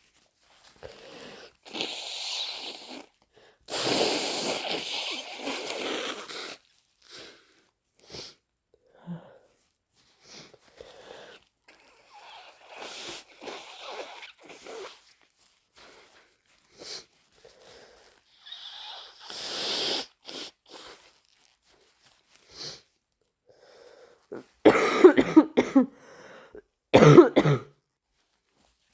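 A person with flu sneezing and blowing a congested nose, a long noisy blow about four seconds in and short sneezes and coughs scattered through, with the two loudest explosive bursts near the end.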